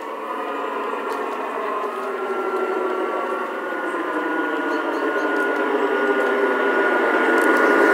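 LGB V220 garden-railway model diesel locomotive running with its onboard sound unit playing a diesel engine drone, a steady hum of several tones that grows steadily louder as the locomotive approaches.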